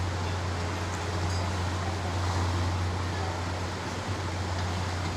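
Diesel engine running at a steady low idle, a deep hum under a wash of noise on an enclosed ferry vehicle deck.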